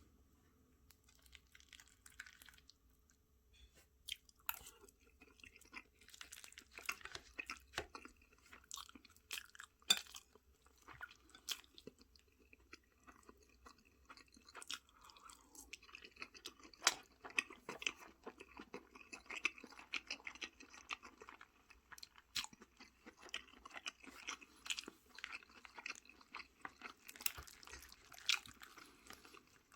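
A person chewing and eating a home-cooked meal, with a continual run of wet mouth smacks, sharp clicks and some crunches that start thin and pick up about four seconds in.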